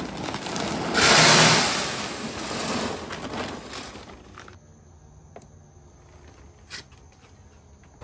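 Hardwood pellets pouring from a plastic bag into a pellet grill's metal hopper, with the bag rustling: a rushing pour, loudest about a second in, that tapers off over the next few seconds. Near the end there are a couple of faint clicks.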